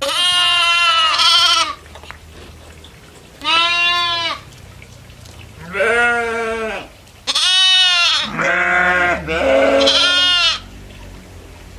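Goats bleating: about six loud, wavering bleats in quick succession, the first one long and broken in two, with short pauses between the others.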